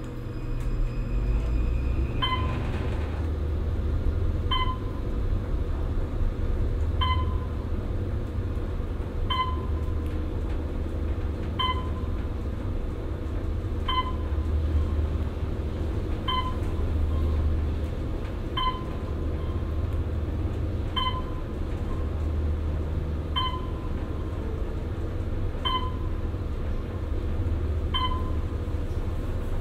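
Otis traction elevator car descending, with a steady low rumble of travel. A short electronic floor-passing tone sounds about every 2.3 seconds, twelve times, once for each floor the car passes.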